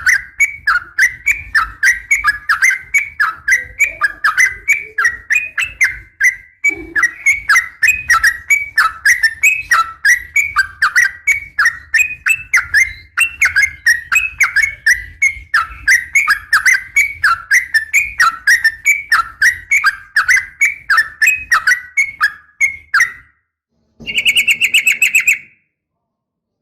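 Sooty-headed bulbul (trucukan) calling, with a fast run of sharp chattering notes about two to three a second. It stops near the end, followed by a short, fast trill.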